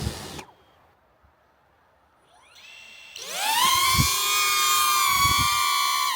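Small DJI quadcopter drone's propeller motors spinning up from standstill, several pitches rising together over about a second, then settling into a steady high whine as it lifts off. Two low thumps come through partway in.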